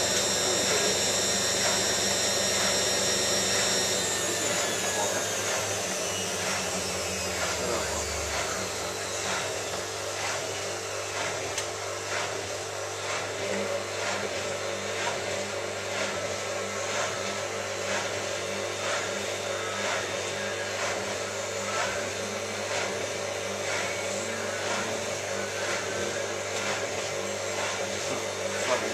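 Hotpoint 9534A washing machine's motor whining steadily at a short spin, then falling in pitch from about four seconds in as the drum winds down. The drum then turns slowly with regular soft knocks. The owner finds the spin a bit down on power.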